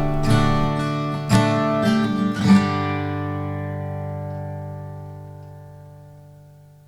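Outro music: acoustic guitar strumming, ending on a final chord that rings out and fades away.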